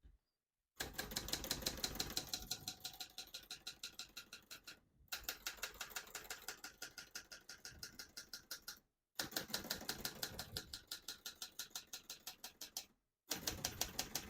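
1967 Hermes 3000 portable typewriter being typed on fast: a steady rapid clatter of keys and typebars striking the platen, about six strokes a second, in four runs broken by brief silent gaps.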